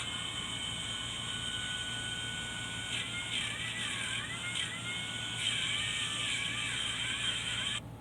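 Angle grinder running with a high whine, its pitch repeatedly dipping and recovering as it is loaded, then cutting off abruptly near the end.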